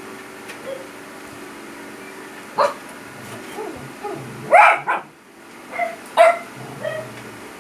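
A dog barking several times in short, separate barks, the loudest about halfway through.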